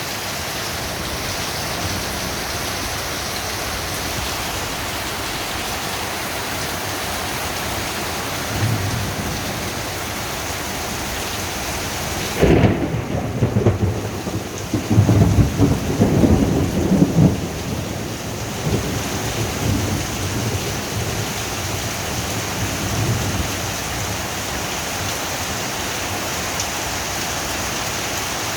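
Heavy rain pouring steadily in a thunderstorm. About halfway through, a sudden clap of thunder breaks into rolling rumbles that surge for several seconds, with fainter rumbles before and after.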